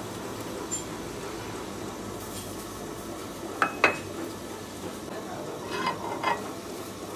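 Metal-on-metal clinks from a lathe chuck key being fitted and worked in the chuck: two sharp ringing clinks about halfway through and a few softer ones near the end. Under them runs a steady hum of the lathe's running belt drive.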